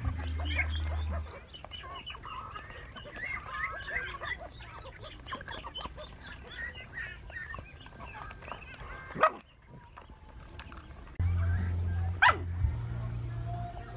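Small pets crying over one another in many quick, short calls, with two louder sharp cries about nine and twelve seconds in.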